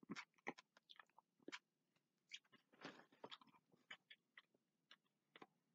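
A person chewing food close to the microphone: faint, irregular wet clicks and mouth smacks, with a longer noisy breath-like sound about three seconds in.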